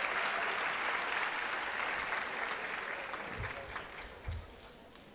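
Applause, fading out steadily over about four seconds, with two soft low thumps near the end.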